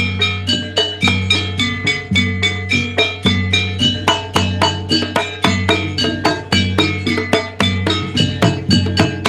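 Javanese gamelan music for jaranan: bronze metallophones and gongs struck in a fast, even pattern of about four ringing notes a second over a deep sustained bass.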